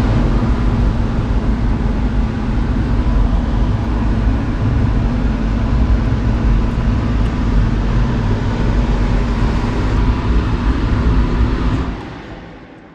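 Steady loud motor-vehicle noise, a dense low rumble that fades out near the end.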